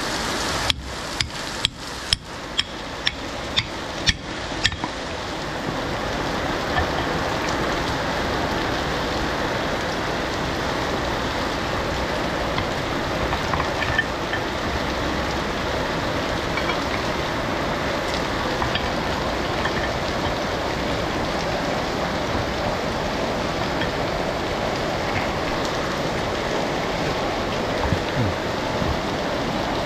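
About ten sharp clicks or taps, roughly two a second, in the first five seconds, then a steady, even hiss.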